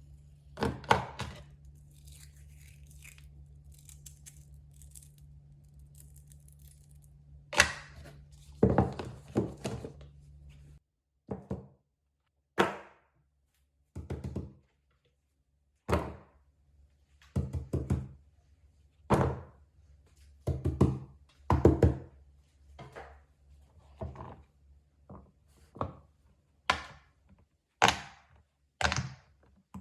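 Fidget toys being handled and set down on a hard surface: a series of irregular thunks and taps, some in quick clusters.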